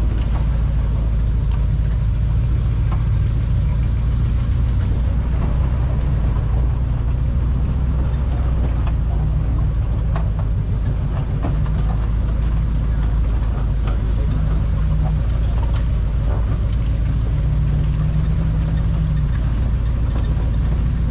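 Off-road wrecker's engine running steadily as it drives slowly along a dirt trail towing a 4x4 buggy on its boom, with scattered small clicks and knocks.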